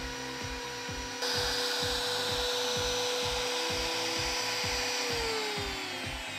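Ozito router spindle of a DIY CNC router whining at high speed while its bit cuts into plywood, with a steady rasping cutting noise; near the end the whine drops in pitch as the motor slows. Background music with a steady beat plays underneath.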